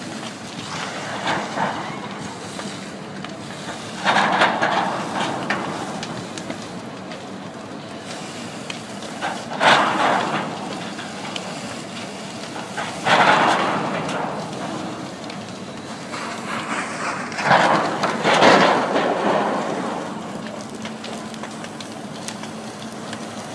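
A burning garbage truck being hosed down: a steady rush of fire and water spray over a low steady hum, broken about five times by sudden loud bursts of rushing noise that fade over a second or two.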